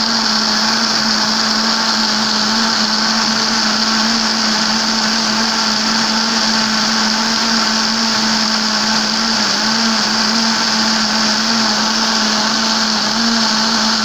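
Electric countertop blender running steadily at speed, churning lemon peels in water: an even, unbroken hum with a steady high whine.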